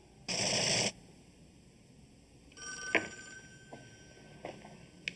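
Telephone bell ringing once, briefly near the start, followed by a faint tone with a click and a few light knocks.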